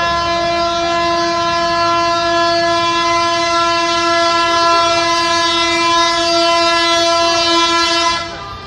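Truck air horn blown in one long note at a steady pitch, cutting off about eight seconds in. A fainter horn sounds just after.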